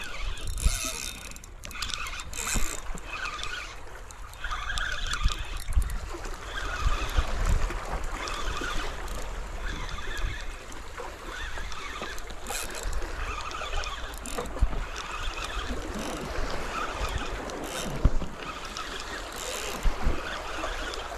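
Small waves washing and lapping against shoreline rocks, with wind rumbling on the microphone and a few sharp knocks from handling the rod and reel.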